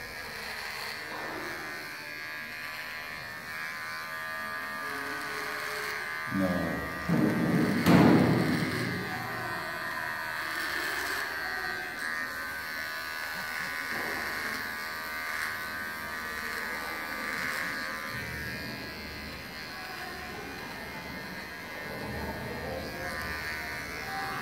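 Cordless electric beard trimmer buzzing steadily as it cuts through a full beard, with a sharp knock about eight seconds in.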